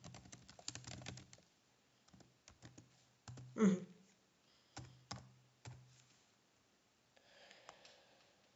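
Typing on a computer keyboard: a quick run of key clicks in the first second or so, then scattered single keystrokes. A short vocal sound from the typist about three and a half seconds in is the loudest moment.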